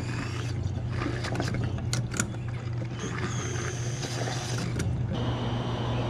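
Steady low hum of running machinery, with a few clicks and knocks from a diesel pump nozzle being handled in a transfer-tank filler neck.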